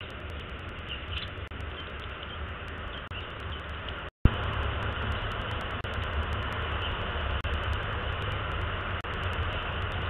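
Steady rumbling outdoor background noise with a low hum. About four seconds in it drops out completely for a moment, ends in a sharp click, and comes back a little louder.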